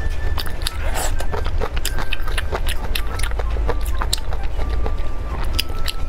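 Close-miked eating: tearing and biting into saucy spicy noodle squares and chewing, a dense run of small wet clicks and smacks over a steady low hum.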